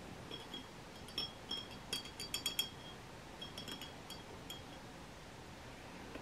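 Glass dip pen clinking lightly against glass: a scattered series of small, high ringing chinks, thickest about two seconds in, dying away after about four and a half seconds.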